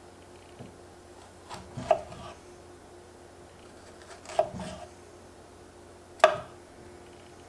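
Small kitchen knife cutting a strawberry on a wooden cutting board. The blade knocks sharply against the board three times, a couple of seconds apart, and the last knock is the loudest.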